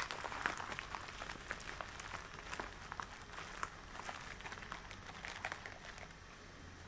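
Latex gloves being handled and rubbed, giving an irregular run of small crackles and snaps that grows fainter near the end.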